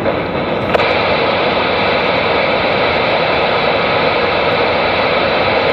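CB radio receiver hissing with steady static between transmissions, loud and even, with a faint hum in it.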